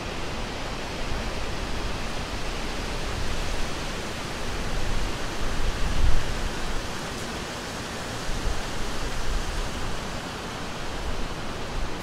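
Summer wind blowing through a forest: a steady rushing hiss with low gusts that swell and fall, the strongest gust about halfway through.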